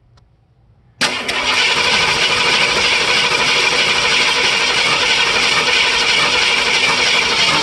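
Ford 302 V8 engine noise that starts abruptly about a second in and runs on loud and steady. The engine has a rough idle that the owner puts down to a lost cam lobe.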